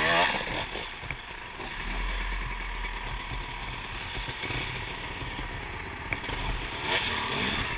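Several dirt bike engines idling and running together, with a steady low rumble.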